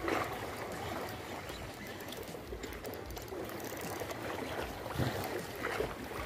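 Seawater lapping and washing against shoreline rocks, with a few slightly louder knocks about five seconds in.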